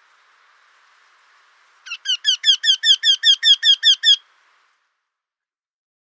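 Eurasian wryneck singing: a run of about a dozen evenly repeated call notes, about five a second. It starts about two seconds in and stops after a little over two seconds.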